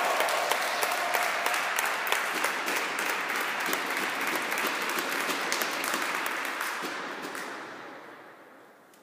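Spectators applauding a finished table tennis rally; the clapping is steady at first and dies away over the last two seconds.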